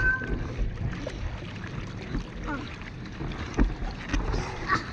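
Pool water lapping and splashing against a boogie board right beside the microphone, a steady low churning with irregular knocks, the sharpest one about three and a half seconds in.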